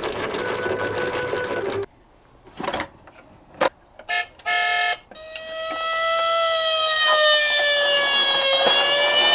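Emergency vehicle siren wailing, its pitch sliding slowly down and then back up, starting about five seconds in. Before it, a noisy rumble cuts off abruptly, followed by a few sharp clicks and a short buzzing tone.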